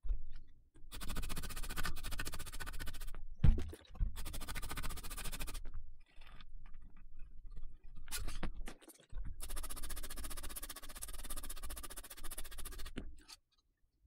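Scratchy scrubbing on a laptop motherboard as the soldering flux is cleaned off around a freshly soldered DC jack. It comes in three long spells of quick strokes with short pauses and a few light knocks between them.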